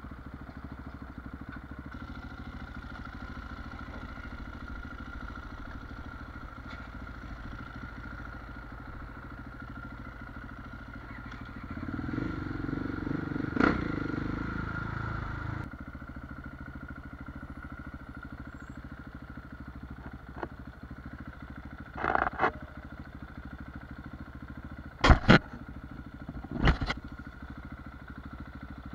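Husqvarna 701 supermoto's single-cylinder engine with an aftermarket Wings exhaust running at low speed, louder for about three seconds when the throttle is opened some twelve seconds in, then settling back. A few sharp knocks come near the end.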